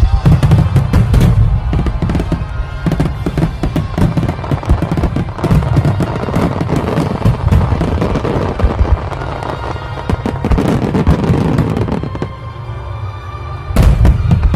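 Fireworks going off, many bangs and crackles in quick succession over music, with a loud burst near the end.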